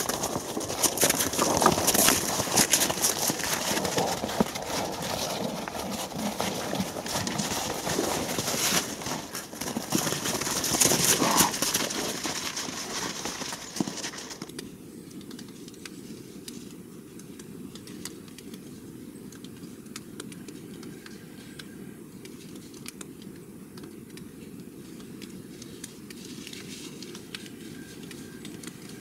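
Wild boar close by, rooting and trampling through snow and leaf litter: busy crackling and rustling with many small clicks and knocks. About halfway through, this cuts abruptly to a steady, dull, low background noise.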